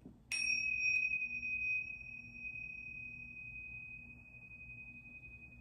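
Tingsha cymbals struck together once, then ringing with a high, clear tone that slowly fades. The higher overtone dies away within a few seconds while the main tone keeps sounding.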